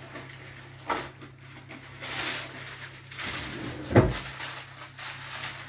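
Kitchen drawer clatter and the crinkling rustle of baking paper being pulled out and handled, with a click about a second in and one heavy thump about four seconds in.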